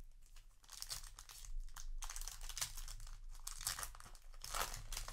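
Foil booster-pack wrapper crinkling in irregular bursts as it is torn open and the cards are pulled out, loudest near the end.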